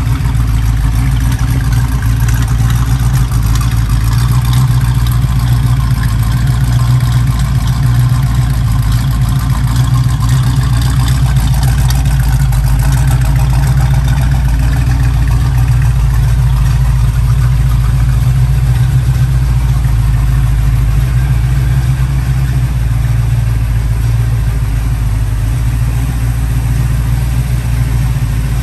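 A 1968 Chevrolet Camaro SS's 350 small-block V8 idling steadily, its sound mostly low.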